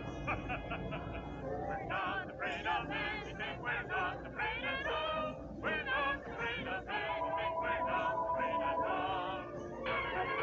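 Cartoon soundtrack: music with voices singing in a wavering line, a steady held note partway through, and the music growing fuller near the end.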